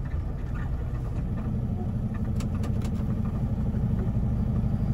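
Semi truck's diesel engine running at low speed, heard from inside the cab: a steady low rumble that slowly grows louder, with a few faint clicks about two and a half seconds in.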